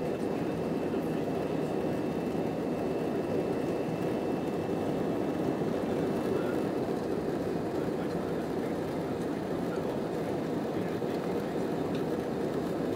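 Jet airliner cabin noise heard from a window seat while the plane climbs after takeoff: the steady, even rush of the engines and airflow.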